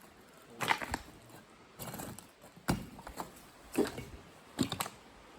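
Footsteps on rough ground, a step every second or so, each a short sharp scuff or crack.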